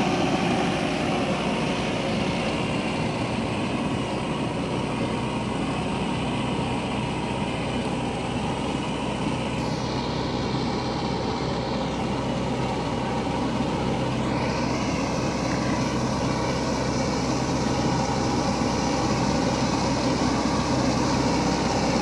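Diesel engine of a Mahindra Earthmaster SX90 backhoe loader running steadily as the machine works.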